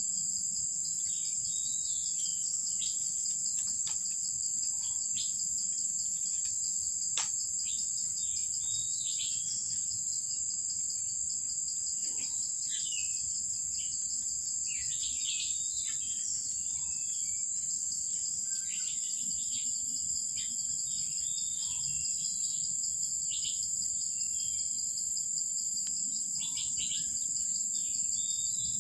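A steady, high-pitched insect chorus, with many brief high chirps scattered through it.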